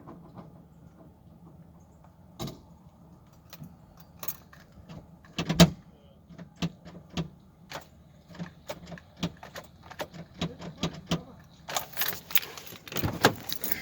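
A run of sharp, irregular metallic clicks and knocks, about two a second at their busiest, with one louder knock about five and a half seconds in and a denser rattling stretch near the end.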